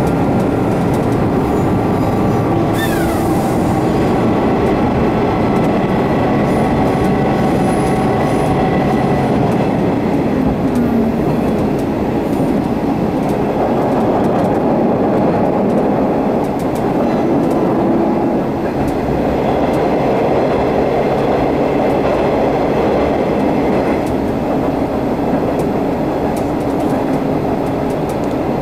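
Sanriku Railway diesel railcar running along the track, heard from inside the car: a steady rumble of wheels and engine, with a faint whine over it for the first several seconds.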